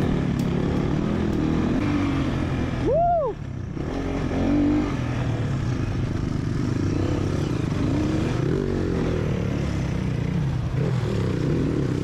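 Motorcycle engine running under way, with a steady low drone and road noise. About three seconds in there is a short tone that rises and falls.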